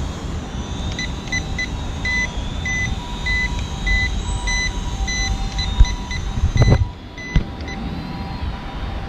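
Short electronic beeps, about two a second for several seconds, from toy RC drone gear, over a faint steady motor whine and low wind rumble. A couple of sharp knocks come about six seconds in.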